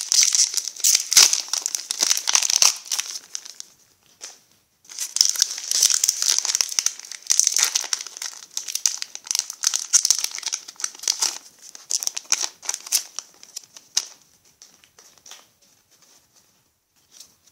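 Foil Pokémon trading-card booster pack crinkling and tearing as it is pulled open by hand, in two long spells of loud crackling with a short pause between, then a few fainter rustles that die away.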